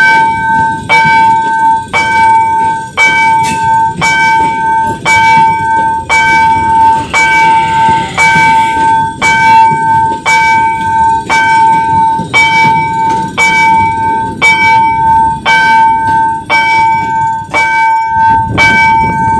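Railroad level-crossing warning bell striking about once a second, each strike ringing on, over the low rumble of a passing commuter train.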